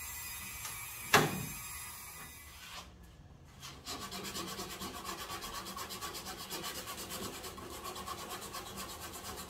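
A small handheld rotary tool with a cutoff wheel runs with a steady high whine, cutting fiberglass, with one sharp knock about a second in. It stops just under three seconds in. From about four seconds a hand file rasps back and forth over the cut edge of the fiberglass hole in quick, even strokes.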